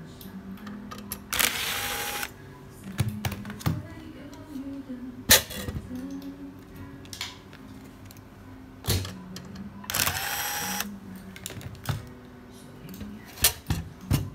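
Metal car stereo chassis being handled on a workbench: sharp knocks and clicks as it is turned over and set down, with two short rasping noises under a second long, one near the start and one about ten seconds in.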